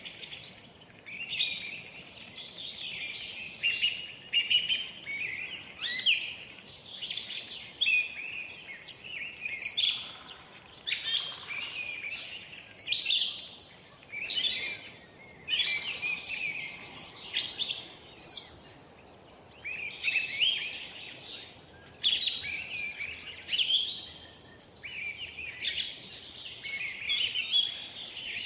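Birds singing, with many quick chirps and trills overlapping continuously.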